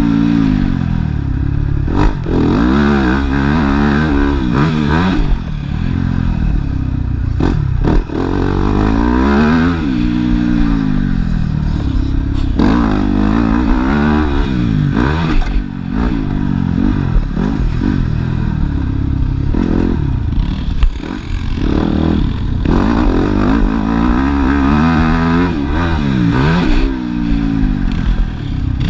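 Motocross dirt bike engine close up, revving up and dropping off again and again as the rider accelerates out of turns and shuts off into them, with a few sharp knocks and clatter from the bike over the rough track.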